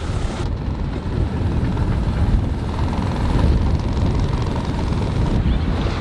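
Strong storm wind buffeting the microphone on a sailboat's deck, a steady heavy rush, with the sound of rough sea around the hull.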